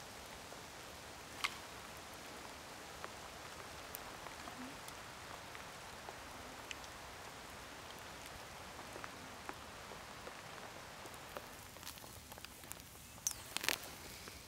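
Faint crackling of a Swedish torch fire's embers burning inside the split log: a soft hiss with scattered sharp ticks, and a short run of louder snaps near the end.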